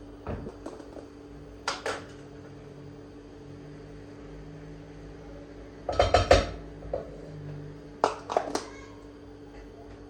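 Hard household objects clinking and knocking as they are handled and set down, in short clusters of quick strikes, the loudest cluster about six seconds in, over a steady low hum.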